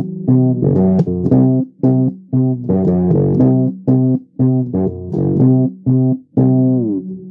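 Fretless bass guitar played with the fingers: a run of plucked notes, about two or three a second, the last one sliding down in pitch near the end.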